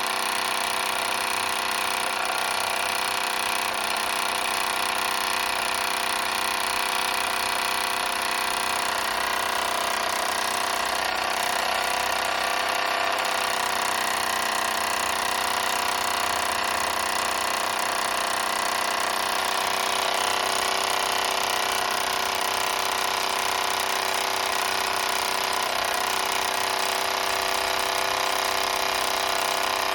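Mamod SE1 toy steam engine running steadily, a fast even chuffing of exhaust steam over a hiss, with enough pressure to keep it going as it should.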